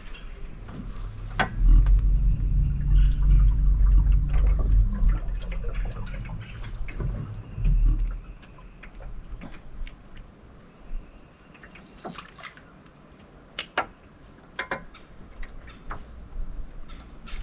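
Water lapping and splashing against a small fishing boat's hull, with a low steady hum for the first several seconds and scattered light clicks and taps in the second half.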